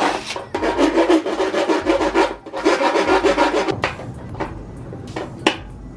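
Hand file rasping back and forth in a freshly drilled hole in a metal dash panel, opening the hole out. It runs in quick rough strokes for about three seconds, then turns to quieter scraping with a few light clicks.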